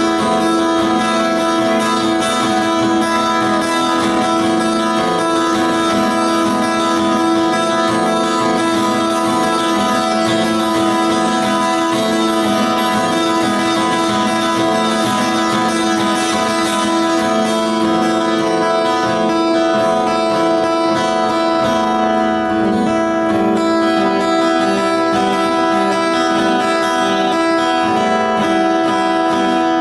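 Acoustic-electric guitar strummed steadily, an instrumental with one chord ringing on unchanged throughout.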